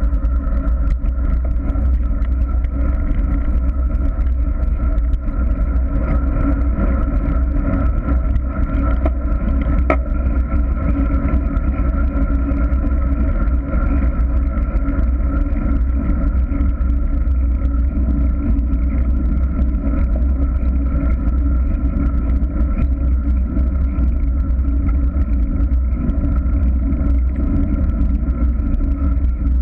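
Steady wind and road rumble on the microphone of a bike-mounted action camera while riding, loud and heavy in the low end, with a steady hum over it.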